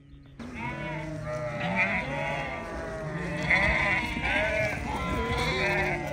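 A flock of sheep bleating, many calls overlapping at once. The bleating starts abruptly about half a second in.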